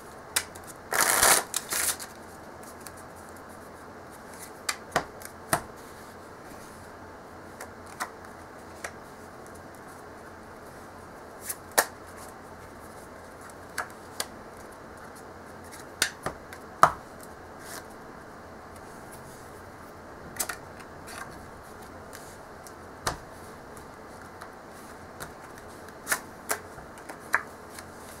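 Tally-Ho playing cards being handled: a short rustling burst of cards about a second in, then scattered crisp snaps and flicks as single cards are turned over and dealt face up onto a mat.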